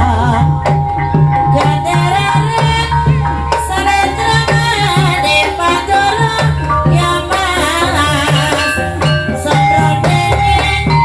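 Ebeg (kuda lumping) dance accompaniment music: drums beating a steady rhythm under pitched melodic instruments.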